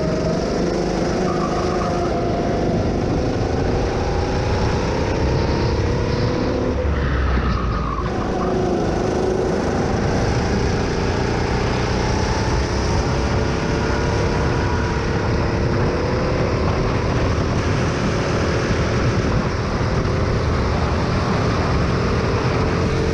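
Go-kart engine heard from the driver's seat, running hard through the laps. Its pitch dips about seven seconds in, then climbs slowly as the kart picks up speed down a straight.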